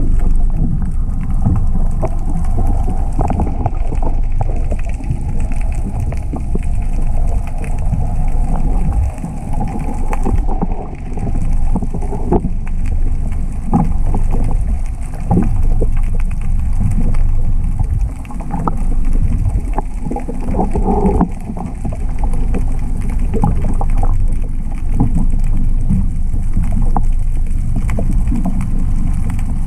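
Water moving against a GoPro camera's waterproof housing underwater: a muffled low rumble with frequent small knocks and clicks.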